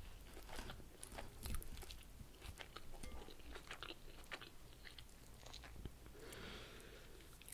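Close-miked chewing of crunchy raw salad leaves (lettuce and radicchio): many small, crisp crunches that thin out near the end.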